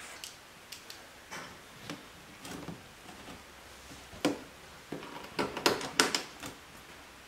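Irregular clicks and light knocks of a composite rock guard (mud flap) being handled and fitted against a car's wheel-well liner while its bottom screw is set. The taps and rattles come loudest in a quick run about five to six and a half seconds in.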